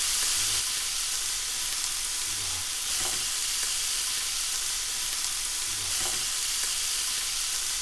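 Four rashers of smoked streaky bacon sizzling steadily in a dry frying pan, frying in their own rendering fat with no oil added.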